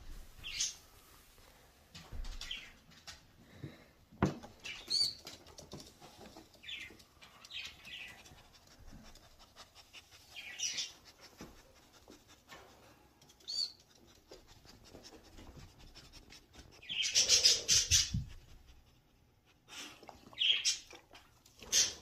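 Green-cheeked conure giving short chirps on and off, with a longer, louder burst of calls about three quarters of the way through. A single sharp knock sounds about four seconds in.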